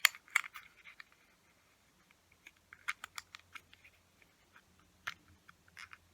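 Small plastic model kit parts clicking and tapping irregularly as they are handled and fitted together, with a dense cluster of clicks at the start and scattered ones after.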